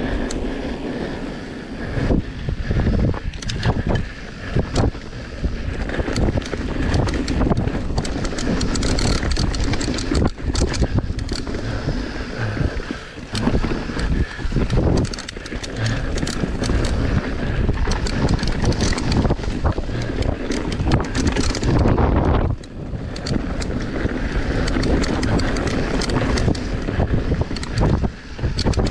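Electric mountain bike ridden fast downhill, with wind buffeting the microphone over the tyre noise. The frame and components clatter and rattle in dense, irregular knocks over the rough ground.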